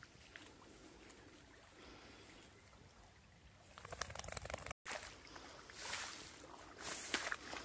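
Walker's footsteps swishing through wet grass and pine branches brushing past, over a faint steady rush of flowing river water. The rustling picks up about four seconds in, the sound cuts out for an instant just before five seconds, and louder swishes follow near the end.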